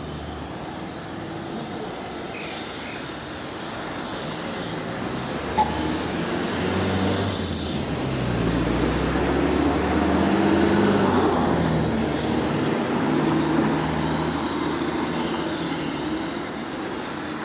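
Engine rumble that swells to its loudest about ten seconds in and then fades, with one short sharp click about five and a half seconds in.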